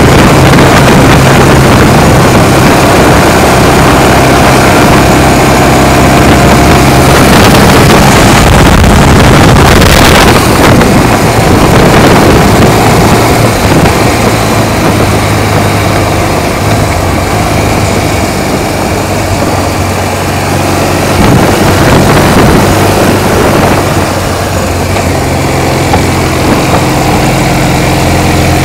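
Motorcycle with sidecar running along at road speed, its engine a steady low drone under heavy wind rush on the microphone. A brief louder rush of noise comes about ten seconds in.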